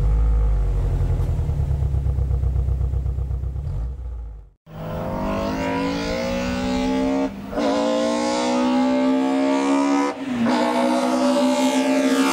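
BMW M3 E30's four-cylinder engine running at low revs with a low pulsing beat, then, after a sudden cut about four and a half seconds in, accelerating hard with the pitch climbing, with upshifts about seven and ten seconds in.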